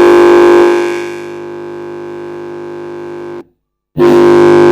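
TV loudspeaker fed by a newly fitted audio amplifier module, giving a loud, steady rasping hum as the module's input cable is held by hand; this is the check that the module is passing sound. The hum drops to a lower level about a second in, cuts off for about half a second after three seconds, then comes back loud.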